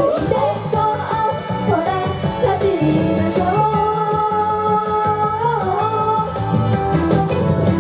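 Japanese idol pop song: a young woman's voice singing into a handheld microphone over a pop backing track with a steady beat, holding one long note in the middle.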